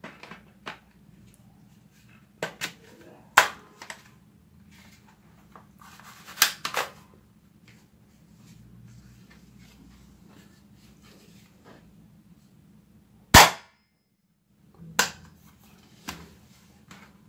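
Sharp hard-plastic clicks and knocks of a toy spring airsoft rifle being handled and a plastic barrel extension pushed onto its muzzle, scattered irregularly. The loudest snaps come about three seconds in and about thirteen seconds in.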